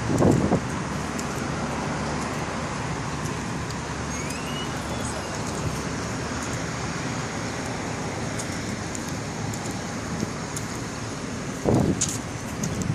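Steady road traffic noise from passing cars, with a couple of low thumps against the phone microphone near the start and just before the end.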